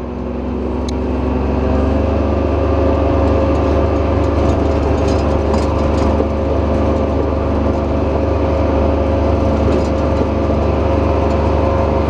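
Engine of a small utility vehicle running steadily as it drives along a dirt track, a steady hum that grows louder over the first two seconds as it picks up speed, then holds even.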